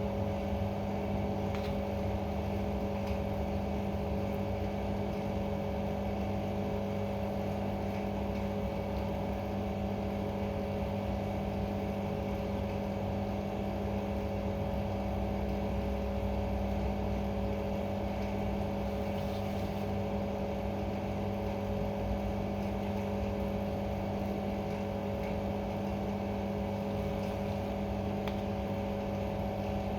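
Steady, unchanging machine hum with a constant low drone, like an electric motor or fan running.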